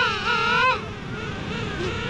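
King penguin giving a loud, wavering trumpet call that ends about three-quarters of a second in, with other king penguins in the colony calling more faintly behind it.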